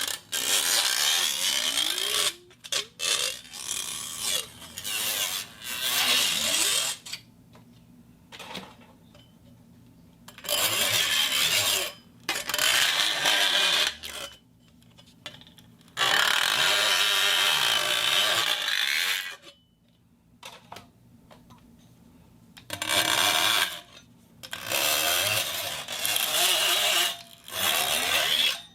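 Steel sheet being scraped and rubbed for foley: a series of harsh scraping passes, each lasting one to a few seconds, with short pauses between them.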